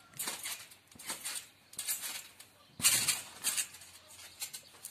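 Someone bouncing on a trampoline mat: a series of short thuds and rustling hits, with the loudest landing about three seconds in.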